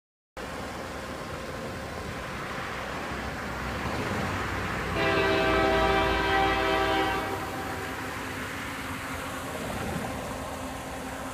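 Diesel freight locomotive horn sounding one long blast about five seconds in, several notes together, over the steady rumble of an approaching train and road traffic.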